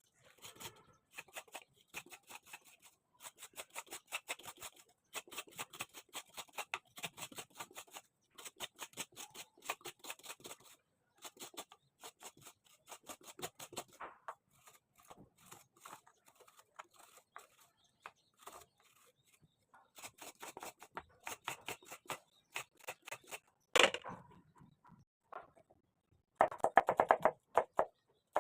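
Kitchen food-preparation sounds: runs of quick light clicks and scrapes, like a knife working on a cutting board. Near the end comes one sharp knock, then a quick run of louder knocks.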